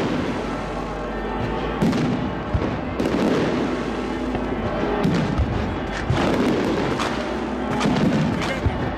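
Aerial firework shells bursting in a string of booms a second or two apart, with crackle between them, over music.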